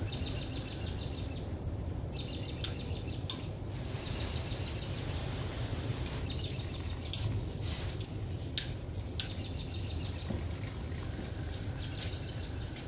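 Water from a garden hose spray nozzle hissing and spattering on a car's soapy body and windshield as it is rinsed, over a steady low rumble, with a few sharp clicks. A small bird chirps in short repeated trills.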